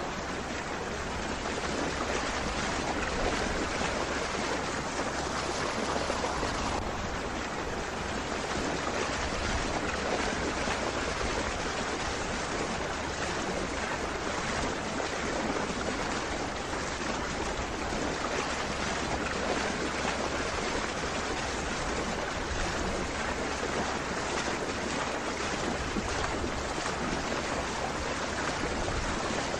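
A steady, even rush of moving water.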